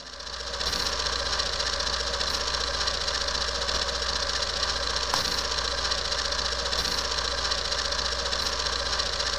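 Film projector running: a steady, rapid mechanical clatter over a low hum, fading in during the first second.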